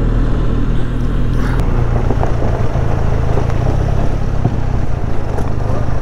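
Motorcycle engine running at low speed as the bike slows and rolls onto a wooden bridge, its note changing about one and a half seconds in, with a few light knocks.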